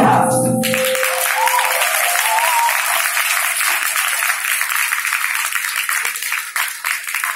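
The dance accompaniment music stops within the first second and audience applause follows, thinning out into scattered claps near the end.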